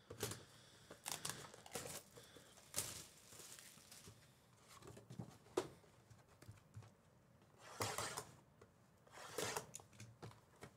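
Trading-card pack wrappers being torn open and crinkled, with cards being handled, heard as a few faint, short bursts of tearing and rustling.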